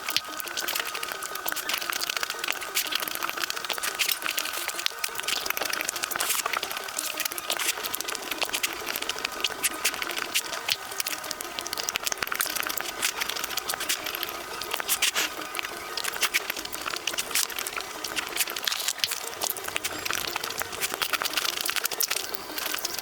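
Close-miked eating of chocolate desserts: a steady run of crisp crackles, clicks and smacks from biting and chewing.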